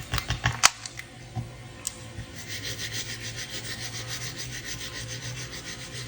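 Scrubbing on a laptop motherboard to clean it around a freshly replaced capacitor: a few quick scratchy strokes at first, then a steady, fast, fine scratching from about two seconds in.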